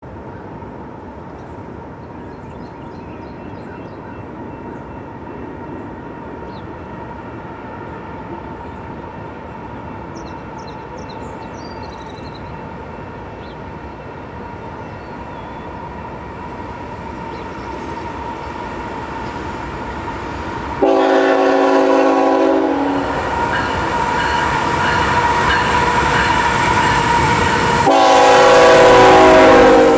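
Diesel freight locomotives CN 3080 and CN 3838 heading a double-stack intermodal train, rumbling louder as they close in. The air horn sounds two blasts, a short one about two-thirds of the way through and a longer, louder one near the end as the lead locomotive comes alongside.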